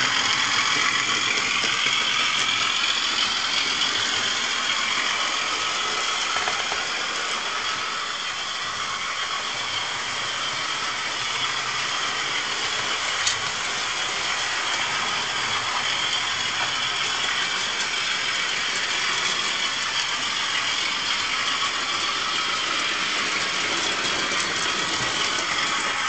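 Electric model locomotives running along model railway track, giving a steady high whirring hiss with scattered faint clicks.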